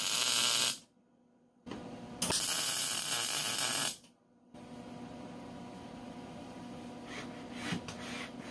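Wire-feed welder's arc crackling and sizzling in two bursts of welding on a steel tube frame: the first stops about a second in, the second runs for under two seconds soon after. A low steady hum follows.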